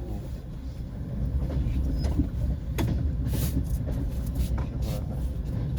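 Passenger train running, heard from aboard: a steady low rumble that grows louder about a second in, with a few sharp knocks and a short hiss partway through.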